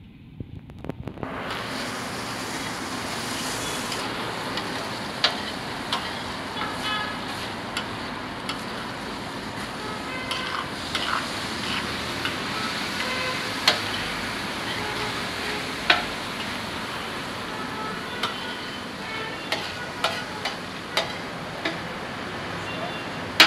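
Minced meat sizzling as it fries in a large, wide, shallow steel pan, while a metal spatula stirs it, scraping and clinking against the pan again and again. The sizzle comes in about a second in.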